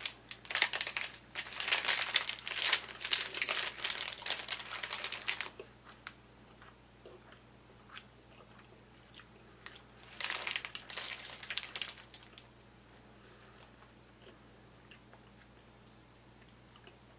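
Plastic licorice bag crinkling as it is handled, in two bouts: a long one of about five seconds near the start and a shorter one of about two seconds in the middle.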